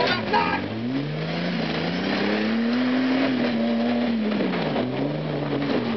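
Jeep Wrangler engine revving under load as it climbs over rocks, the pitch rising over the first three seconds, dropping about four and a half seconds in, then rising again.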